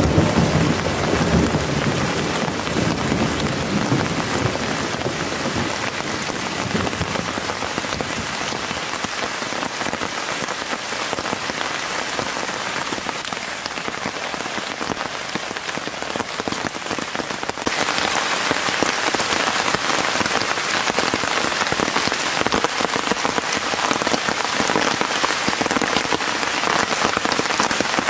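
Steady heavy rain, with the tail of a thunder rumble dying away in the first few seconds. About two-thirds of the way through, the rain abruptly turns louder and hissier.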